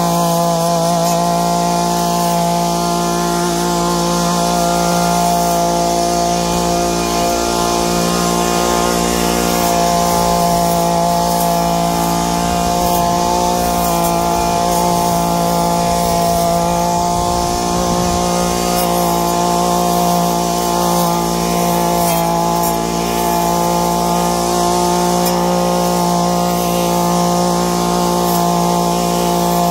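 Husqvarna 322L two-stroke trimmer running at a steady speed with its steel blade spinning, the engine note holding one even pitch throughout.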